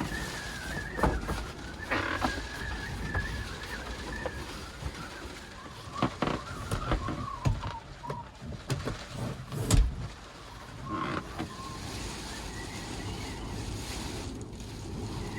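Storm wind and rain buffeting a parked kei van, with a thin wavering whistle of wind and scattered knocks and clicks, the loudest a little before two thirds of the way in.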